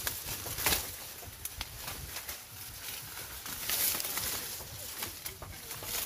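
Dry corn leaves and husks rustling and crackling as the stalks are handled and ears of corn are picked by hand, with scattered sharp crackles throughout.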